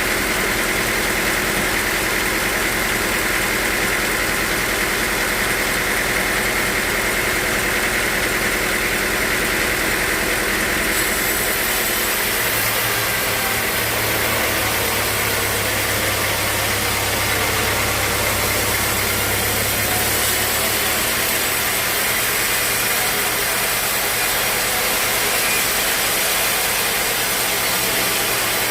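Sawmill machinery running steadily, a loud continuous mechanical noise. A deeper hum comes in for several seconds near the middle.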